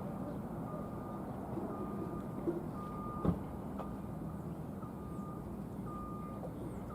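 A vehicle's reversing alarm beeping about once a second, each beep a short steady high tone, over a low steady rumble. A couple of sharp knocks about two and a half and three seconds in.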